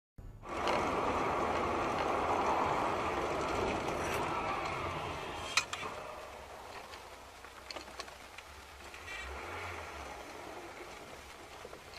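Steady road noise of a car driving along a highway, louder for the first few seconds and then lower, with one sharp click about five and a half seconds in.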